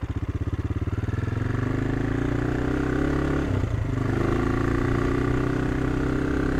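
AJP PR7's single-cylinder motorcycle engine pulling away, its firing pulses quickening as it speeds up over the first two seconds, then running at a steady pace, with a brief dip in the engine note about three and a half seconds in.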